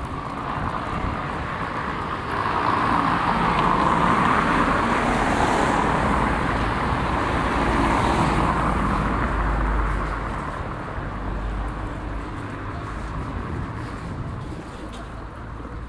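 A car driving past close by on a cobblestone street, its tyres rumbling over the stone setts. The noise swells about two seconds in, stays loud for several seconds, then fades away.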